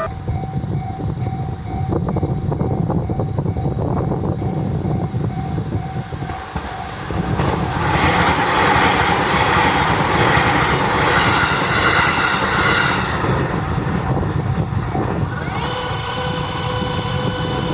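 A JR 253 series electric train passes a level crossing while the crossing bell rings. The train's rumble and wheel noise build and are loudest for about five seconds in the middle, then ease off.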